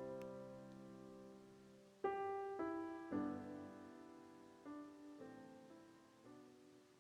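Background piano music: a chord dying away, then a slow, sparse phrase of single notes and soft chords, each left to ring and fade.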